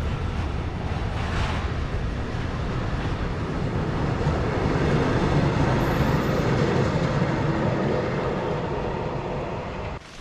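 Freight train rolling along the track, a steady noise of wheels on rails that grows louder around the middle and cuts off suddenly near the end.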